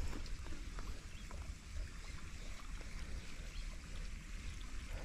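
Wind rumbling on the microphone outdoors, with a faint steady hiss and a few small, scattered ticks.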